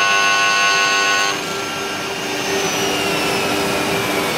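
Woodworking CNC lathe with a built-in dust collector, its high-speed boring spindle whining steadily with several tones as it bores a slot through a square wooden blank. The whine cuts off about a second and a half in, leaving the steady hum and rush of the machine's dust-collection fan, with a faint falling whine after.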